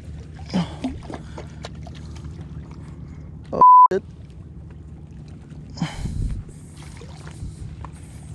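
A short, loud censor bleep, one pure beep tone about halfway through, with the rest of the sound cut out around it. Under it runs a steady low rumble, with a few knocks and splashes.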